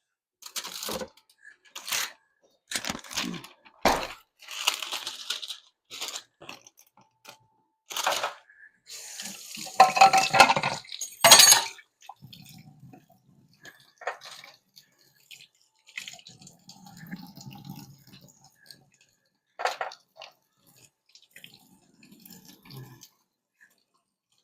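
Kitchen clatter of dishes, containers and utensils being handled: a series of knocks and clicks, with a louder rushing stretch about ten seconds in, then quieter scattered handling.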